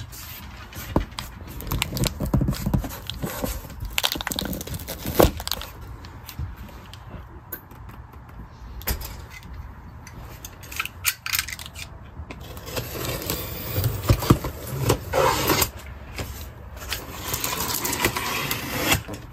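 Irregular scraping and rustling of hands and tools on a large cardboard carton, with small metallic clicks and clinks from pliers prying out the carton's staples.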